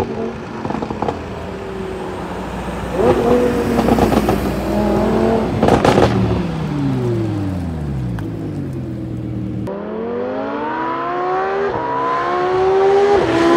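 Lamborghini Huracán LP610-4's V10 through a Fi valvetronic catback exhaust with catless downpipe, revving hard: the engine note climbs, crackles sharply about six seconds in, falls away in a long sweep, then climbs again through an upshift near the end.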